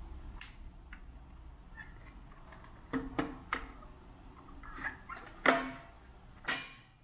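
Plastic case of a small radio alarm clock knocking and clicking as it is handled, turned and laid down on a hard countertop: a handful of short knocks from about three seconds in, the loudest late on.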